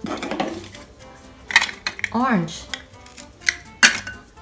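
Pieces of plastic play food clacking against each other and the bowl as they are rummaged, set down and picked up: a few sharp knocks with some rustling in between.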